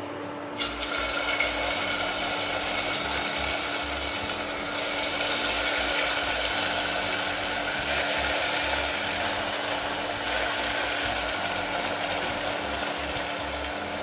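Sabudana and potato pakoras deep-frying in hot refined oil: a dense, steady sizzle and crackle of bubbling oil that starts abruptly about half a second in, with a faint steady hum underneath.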